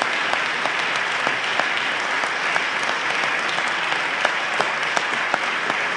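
Audience applauding steadily, a dense patter of many hands with a few sharper single claps standing out.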